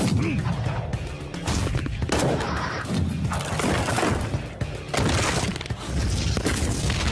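Rapid series of punch and impact sound effects from an animated martial-arts flurry of blows, over background music.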